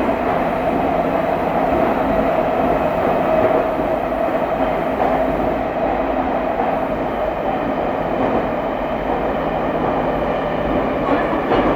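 Running noise inside a 70-000 series Rinkai Line train car: an even rumble of the wheels on the rails and a steady hum from the moving car.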